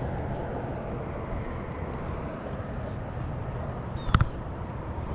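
Steady low rumble with one sharp knock about four seconds in.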